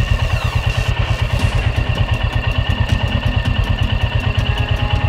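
Motorcycle engine idling with a steady, even pulse while the bike stands still.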